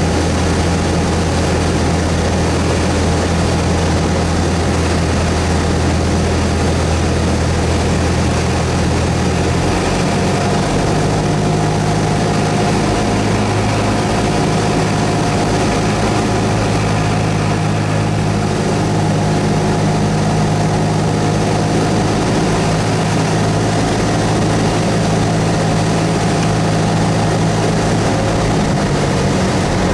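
Cessna 172S's four-cylinder Lycoming engine and propeller running with a steady drone. The pitch shifts about ten seconds in and again near the end, a change in engine power.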